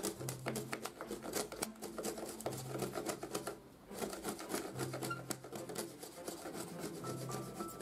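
Hand chisel paring out a notch in a thin wooden kumiko strip: a quick, even run of small crisp cuts and scrapes of steel on wood, pushed by hand without a mallet. Faint background music runs underneath.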